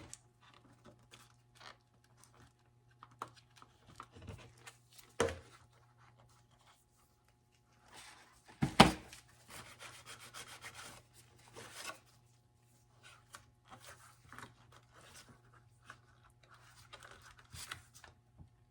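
Handling noises as plastic armor parts and a strap are worked together for gluing: soft rubbing, scraping and small clicks, with one sharp knock about nine seconds in. A low steady hum sits underneath.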